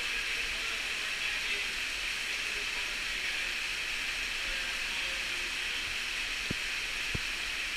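Steady hiss of glacial meltwater dripping from the ice-cave ceiling and trickling over the rocky floor, with two sharp ticks near the end.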